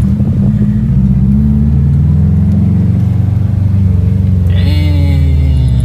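Subaru WRX STI's turbocharged EJ flat-four engine and exhaust running hard under load, a loud, deep drone that shifts slightly in pitch. A higher steady tone joins near the end.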